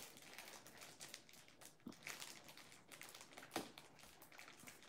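Faint crinkling of a food wrapper being handled, with a few soft clicks, one slightly louder about three and a half seconds in.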